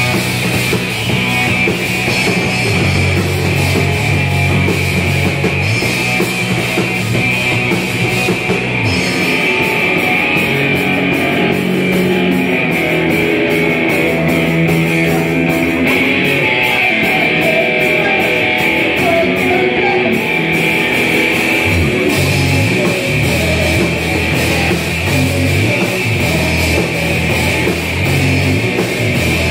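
Live rock band playing loud: electric guitars and a drum kit, without a break.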